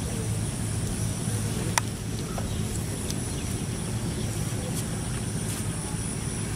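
Steady low hum with faint, steady high-pitched tones above it, and one sharp click nearly two seconds in.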